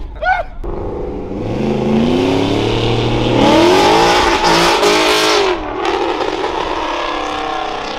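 Ford Mustang accelerating away, its engine revving with the pitch climbing. It is loudest about halfway through, then drops back and fades as the car drives off.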